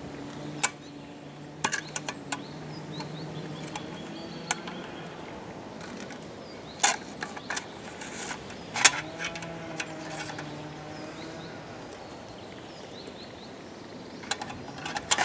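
Outdoor ambience: a low hum fades out about a third of the way in and returns for a few seconds later on, with a few sharp clicks and faint short chirps.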